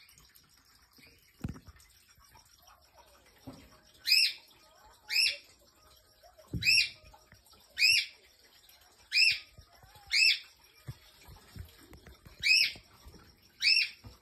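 Short high chirps repeated about once a second, eight in all, starting about four seconds in, with a few dull low knocks before and among them.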